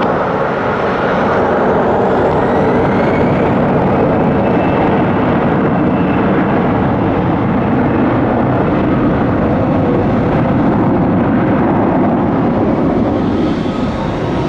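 Jet engines of an Airbus A321-200 at takeoff power on its departure, a loud steady rush of jet noise with a faint whine gliding in pitch.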